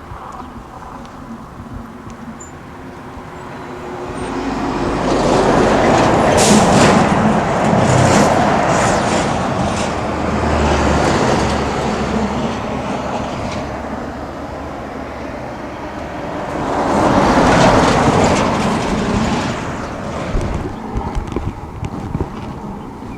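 Road traffic: one vehicle passes close by about a third of the way in, followed by a deep engine rumble, and another passes about three-quarters of the way in.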